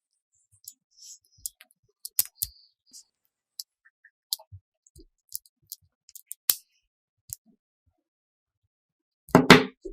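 Irregular small clicks and taps from hands handling and fitting small craft parts, with a louder knock near the end.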